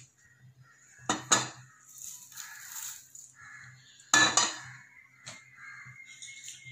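Stainless steel pan clinking and scraping as dry-roasted curry leaves are tipped out of it: two light clinks about a second in, a rustle of leaves sliding across the metal, and a louder clank about four seconds in.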